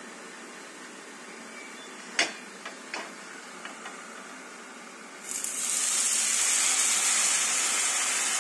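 A few light knocks, then about five seconds in, water poured into the hot oiled pan of frying jiaozi sets off a sudden, loud, steady sizzling hiss: the steaming stage of steam-fried dumplings.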